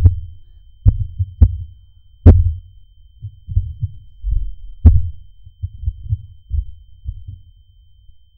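Heartbeat sound effect: low, irregular thumps, some topped with a sharp click, growing fainter and fading out near the end.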